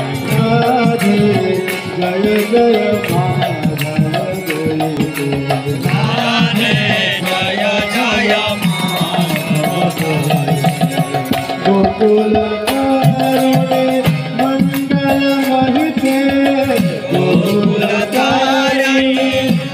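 Devotional chanting (kirtan): voices singing a mantra to a hand drum and other percussion.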